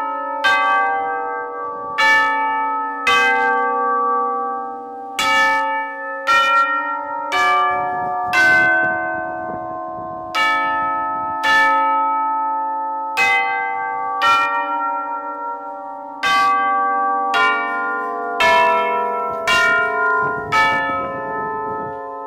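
Tubular bells played one struck note at a time, about one a second, in a slow melody; each note rings on and overlaps the next.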